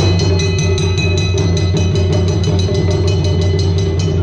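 Taiko drums played live: a fast, even beat of sharp strikes, about six a second, over a continuous low rumble that sets in suddenly at the start.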